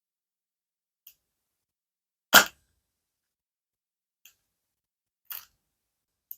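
Five short clicks and taps of surprise-toy packaging being handled and opened, the loudest a little over two seconds in, separated by silence.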